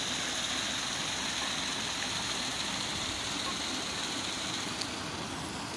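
Pond paddlewheel aerator running, its motor humming under a steady rushing splash of churned water. A high hiss over it fades out near the end.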